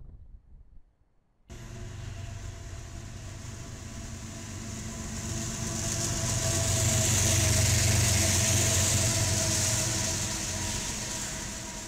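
Kansas City Southern diesel freight locomotives passing close by, starting abruptly about a second and a half in. The engines drone steadily under a hiss of wheels on rail. It grows louder to a peak partway through, then eases as they go by.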